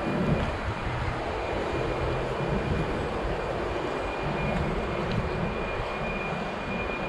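Steady city-street background noise: a low, even rumble of traffic, with a thin steady high whine over it.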